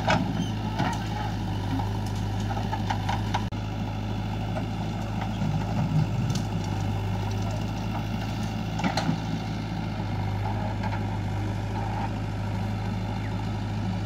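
Diesel engines of a backhoe loader and tractors running steadily, with scattered knocks and clunks from the digging and loading work.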